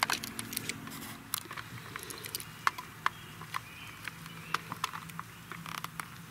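Irregular small metal clicks and scrapes of a small screwdriver turning the mounting screws that hold a duplex outlet in its junction box.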